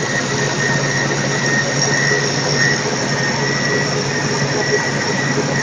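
Refrigerator condenser fan motor running steadily, a constant hum under a rush of air, with water from a small submersible fountain pump running down through the homemade cooler.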